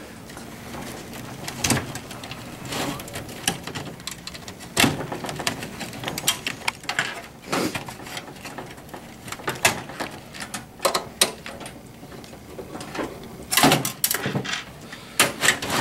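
A screwdriver and hands working the sheet-metal hard-drive cage of an old desktop PC case: irregular metallic clicks and knocks as the drive casing is unscrewed and worked loose. The clicks come thickest and loudest near the end.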